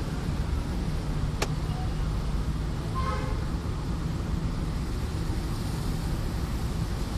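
Steady low rumble of a car's engine and tyres on a wet road, heard from inside the cabin in slow traffic. A sharp click comes about one and a half seconds in, and a short pitched sound about three seconds in.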